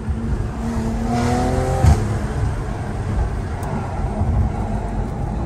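BMW M340i's turbocharged straight-six through an Active Autowerke aftermarket exhaust, heard inside the car's cabin while driving: the revs climb for about a second, then drop with a short sharp crack about two seconds in, and the engine settles into a steady low drone over road noise.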